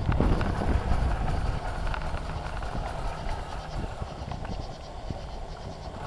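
Bicycle rattling and rumbling over the ground while being ridden, heard through a handlebar-mounted camera: tyre rumble with many small clicks and knocks. It is loudest in the first second and eases a little after.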